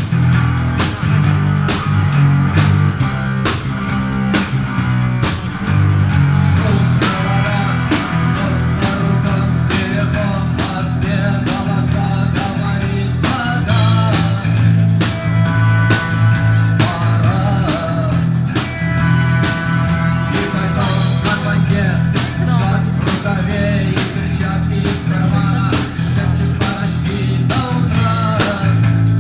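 Rock band playing live: guitar over a strong bass line and a drum kit keeping a steady beat.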